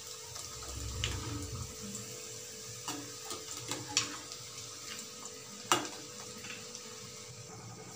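Onion pakoda fritters frying in sesame oil in a metal kadai: a steady sizzle, with a few sharp clicks and scrapes of a slotted metal spoon against the pan as the fritters are turned.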